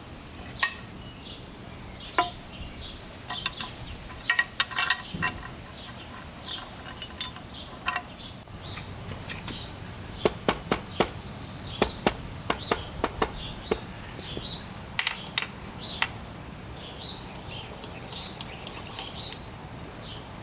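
Metal hand tools and engine parts clinking and tapping during engine assembly, in irregular clusters of sharp clicks. Birds chirp in the background.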